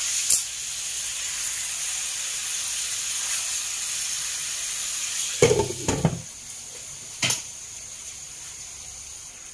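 Pork belly sizzling in hot oil in a wok. About five and a half seconds in, a glass lid clatters onto the pan, with a sharp click a second later, and the sizzling carries on quieter under the lid.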